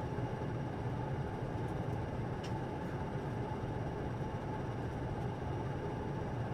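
Steady cabin noise of an ATR turboprop airliner: an even low hum and hiss from the engines and airflow as the aircraft taxis after landing, with a faint tick about two and a half seconds in.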